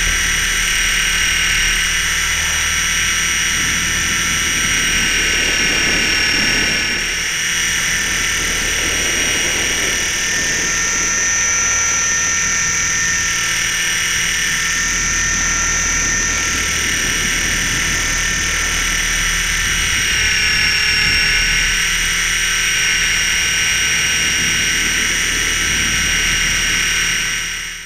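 Thunder Tiger Mini Titan RC helicopter in flight, recorded from its onboard camera: the electric motor and drive gears whine steadily in several high tones that drift slightly in pitch, over a low hum.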